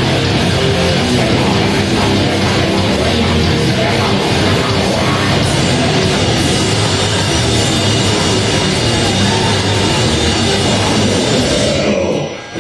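Live grindcore band playing loud: distorted electric guitars, bass guitar and drum kit in a dense wall of sound, which cuts off sharply near the end as the song stops.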